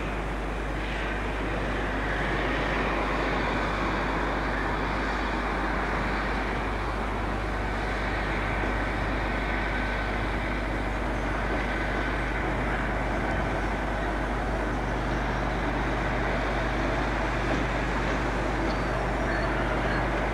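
Class 37 diesel-electric locomotive's English Electric V12 engine running steadily as it hauls tank wagons slowly along the track. The engine note grows a little louder about two seconds in.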